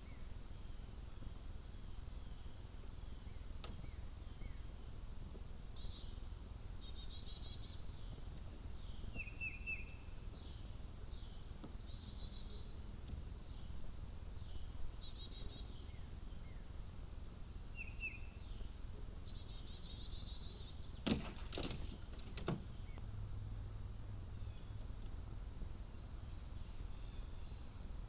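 Steady high-pitched insect trill, with scattered short high chirps. About three-quarters of the way through come three sharp clicks close together.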